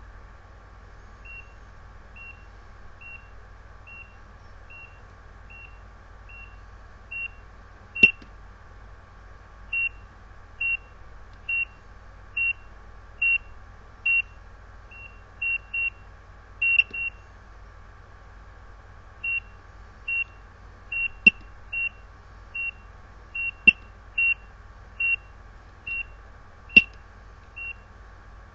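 Bedside ECG monitor beeping once with each detected heartbeat: a short high tone about 70 times a minute. It is faint at first and much louder from about seven seconds in, with a pause of about two seconds past the middle. A few sharp clicks come from its controls being worked.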